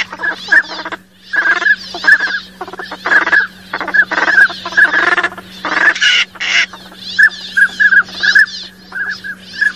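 Northern pintail ducks calling: series of short fluty whistles alternating with rasping quacks, with a faint steady low hum underneath.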